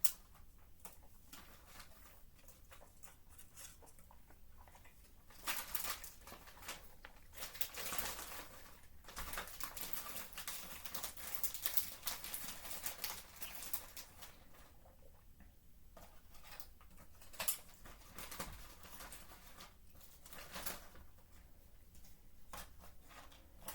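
Close-miked eating: a person chewing and handling food and its packaging, with a stretch of dense rustling and crinkling from about five to fourteen seconds in, and scattered small clicks.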